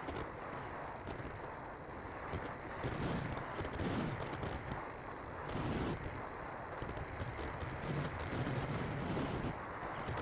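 Airflow rushing and buffeting over the onboard camera's microphone on a Bixler II Sport RC plane in flight: a rough, gusty rumble and hiss that swells and eases every second or two.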